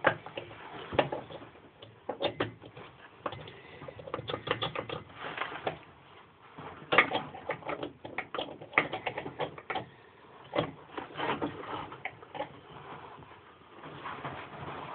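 Irregular clusters of small clicks and taps as hand tools and small engine parts are handled during reassembly of a lawnmower engine's flywheel.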